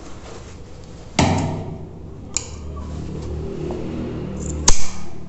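Cloth trousers rustling as they are handled and turned at the sewing table. Near the end comes one sharp, loud metallic click as tailoring scissors snip the thread ends at the seam.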